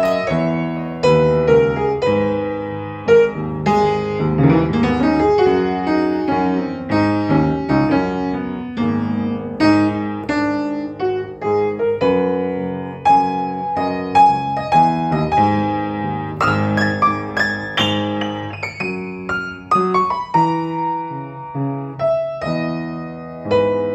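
Solo upright piano played with both hands: a continuous flow of notes and chords, with many notes left ringing into the next.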